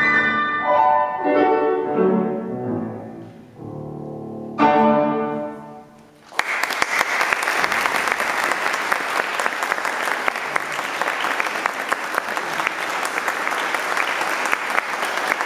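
Bohemia grand piano playing the closing bars of a classical piece, ending on a loud final chord about four and a half seconds in that dies away. About six seconds in, audience applause starts and goes on steadily.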